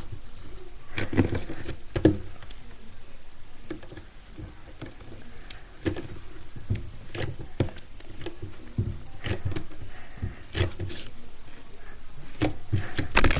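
Fingers poking, pressing and stretching glitter slime on a wooden tabletop, giving off irregular small clicks and pops.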